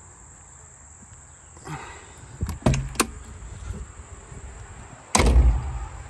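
Clicks of a latch and handle on the Kato HD308US-7 excavator's metal door, then the door shutting with one heavy thud about five seconds in. Steady cricket chirping underneath.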